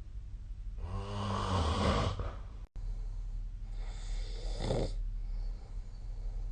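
A sleeping person snoring: two snores about three seconds apart, the first low and buzzing, the second airier, over a steady low hum. A split-second dropout falls between them.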